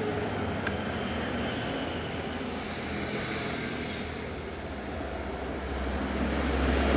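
Steady low rumble of road traffic that grows louder near the end, with one sharp click about a second in.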